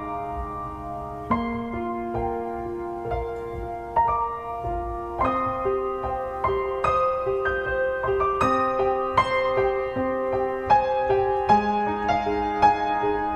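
Background music: a gentle piano piece, with notes struck at a steady, unhurried pace over held chords.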